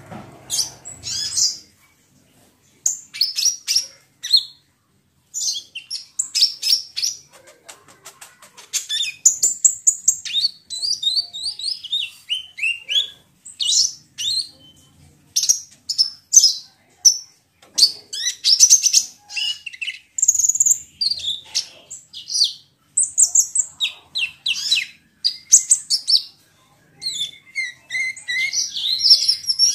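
Sunbird (kolibri ninja) singing: rapid strings of high, thin chirps and twittering trills, coming in bursts with short pauses between them.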